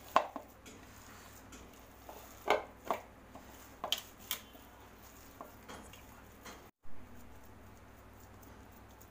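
A hand kneading and pressing a ground mutton and chana dal shami kabab mixture in a bowl, with a few sharp clinks and knocks against the bowl in the first half, then quieter squishing.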